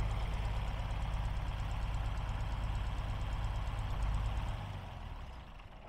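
1955 Allis-Chalmers WD45 tractor engine running steadily with a low, even pulse as the tractor drives slowly. The sound fades away over the last second or so.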